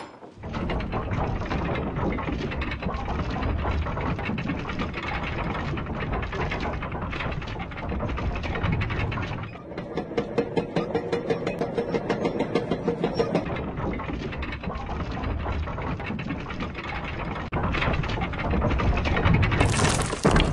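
Animated sound effect of a castle drawbridge being lowered on its chains: a long grinding rumble, with a stretch of rapid chain clanking about halfway through and a louder burst with hiss near the end.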